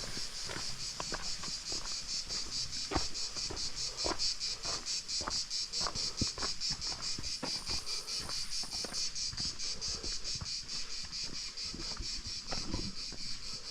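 Insects chirping in a fast, steady, evenly pulsed high trill that does not let up, with irregular soft footsteps on the trail beneath it.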